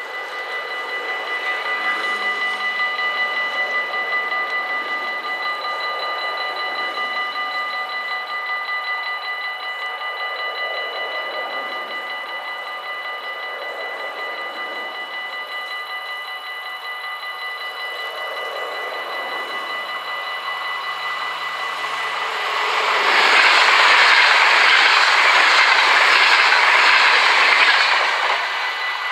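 Level-crossing bells ringing steadily as the crossing closes. About 22 seconds in, a VIRMm double-deck electric intercity train passes at speed for about five seconds, loudest of all, while the bells keep ringing.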